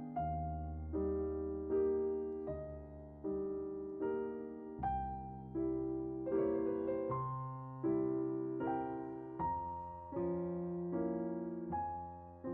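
Background piano music: soft chords struck at an even pace, a little faster than one a second, each left to ring and fade.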